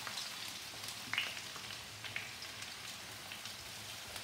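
Diced potatoes sizzling faintly in shallow oil in an uncovered frying pan as they crisp, with a few light clicks as a wooden spatula turns them.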